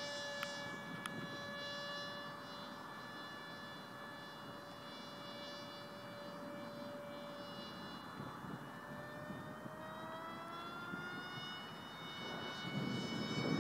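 Electric motor of a small radio-controlled F-15K model jet whining steadily in flight; its pitch rises about two-thirds of the way through and then holds. Near the end a rushing noise swells under the whine.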